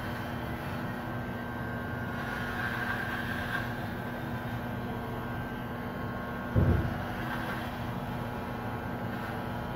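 Electric hair clippers running with a steady buzz as they cut hair at the back of the head. A brief low thump comes about six and a half seconds in.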